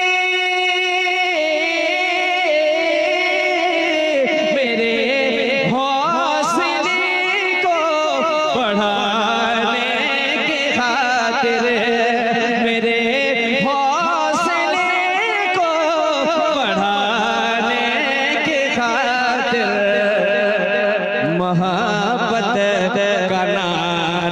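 A man singing a naat solo into a microphone: long held notes that break into wavering, ornamented runs up and down in pitch.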